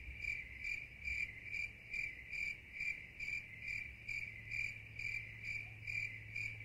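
A cricket chirping steadily and faintly, about two to three even chirps a second.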